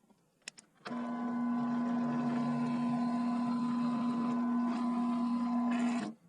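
Electric drill running at a steady speed for about five seconds while boring a 1/4 inch hole into a wooden lure body, then stopping abruptly. There are two brief clicks just before it starts.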